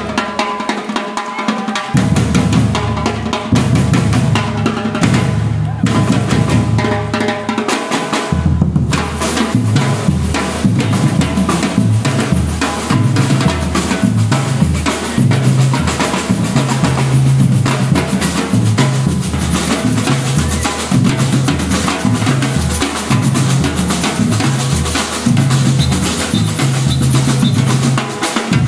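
Music driven by a drum kit: bass drum, snare and cymbals in a busy, steady beat. The low end drops out briefly about a second in and again around eight seconds.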